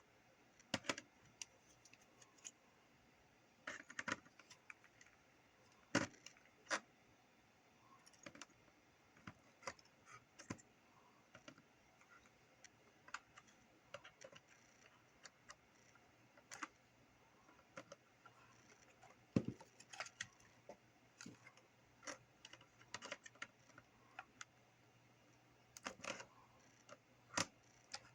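Irregular light clicks and taps of small tools and parts being handled, a few louder knocks among them. A faint low hum comes in about halfway through.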